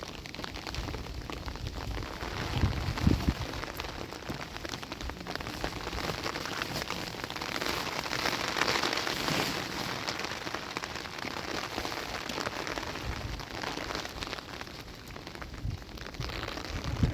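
Steady rain falling, with many fine drop ticks, swelling a little about halfway through. A low thump comes about three seconds in.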